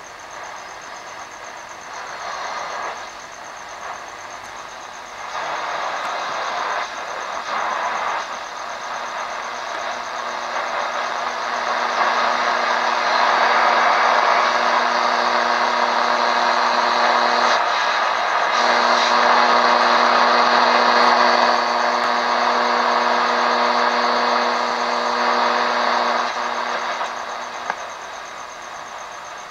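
AM radio static from a Sonatec PRI-037U portable receiver as its tuning knob is turned between stations. The hiss swells louder about a third of the way in, and a steady buzzing hum runs through the middle, breaking off briefly.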